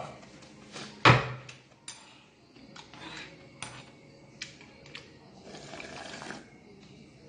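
Metal spoon clinking against a heavy earthenware soup bowl (ttukbaegi), with one loud knock about a second in. Near the end comes a stretch of slurping as broth is drunk straight from the bowl.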